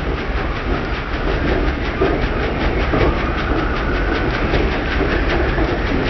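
New Holland TC5.90 combine harvester cutting barley: the Claas V660 grain header's reciprocating cutter-bar knife gives a rapid, even clatter over the low, steady running of the combine.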